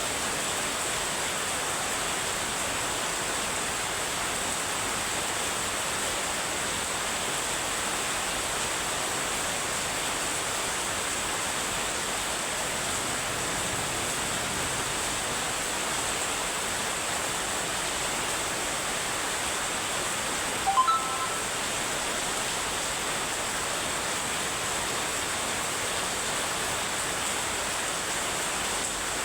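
Heavy rain falling steadily, an even hiss with a thin steady high tone under it. About two-thirds of the way through, a brief sound with a few clear tones stands out over the rain.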